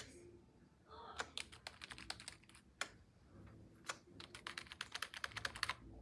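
Keys of a Manhattan wired membrane gaming keyboard being pressed in quick, irregular succession: a quiet patter of key clicks starting about a second in and thickest near the end.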